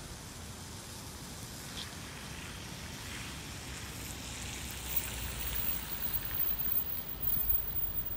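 Steady outdoor hiss with a low rumble of wind on the microphone. In the second half a car approaching on a wet road swells in, the hiss of its tyres on the wet pavement growing louder.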